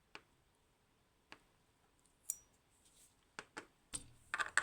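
Small metal lock parts handled on a surface: scattered light clicks and taps, a couple with a short metallic ring, bunching into a quick run of clinks near the end.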